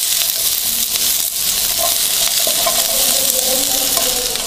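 Chunks of onion, capsicum and tomato sizzling in a little oil in a nonstick pan as they are stir-fried with a silicone spatula: a steady frying hiss with a light tap or scrape now and then.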